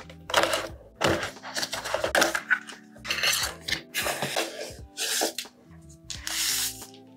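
Cardboard charger box being opened by hand, with a series of scraping and rubbing noises as the lid comes off and the inner tray slides out, then plastic wrapping crinkling near the end, over soft background music.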